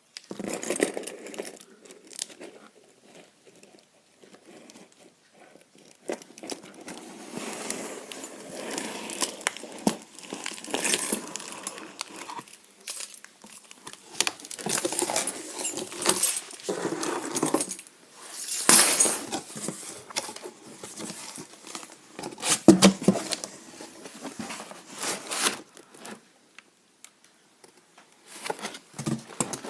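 Irregular handling noise: rustling, rattling and sharp knocks, with the loudest hits about two-thirds of the way through.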